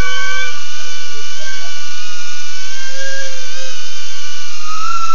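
BetaFPV Aquila16 FPV quadcopter's motors whining, several high tones drifting up and down together as the throttle changes.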